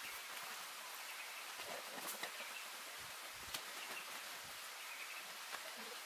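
Quiet forest ambience: a steady faint high hiss with a few short bird chirps and occasional soft clicks.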